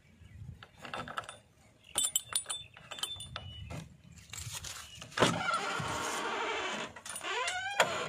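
A JCB backhoe loader's cab door handle and latch are worked with a run of sharp metallic clicks and rattles. About five seconds in, a louder steady sound with a pitch to it lasts about two seconds, and a few short rising squeaks come near the end.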